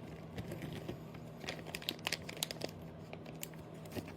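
Crinkly material being handled: soft crinkling with a few scattered sharp crackles, mostly from about a second and a half to three and a half seconds in.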